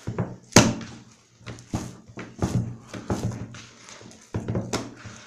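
Brioche dough being kneaded by hand in a plastic bowl: a run of irregular thumps and slaps as the dough is pushed and turned against the bowl.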